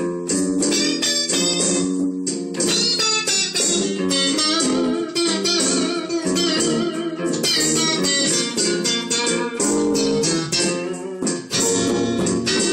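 Electric guitars jamming a blues tune, with many quickly plucked notes over a steady beat.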